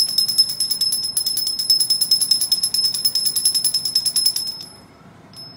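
Small puja hand bell rung rapidly and evenly: a high, steady ringing with a fast rattle of strokes, stopping about four and a half seconds in.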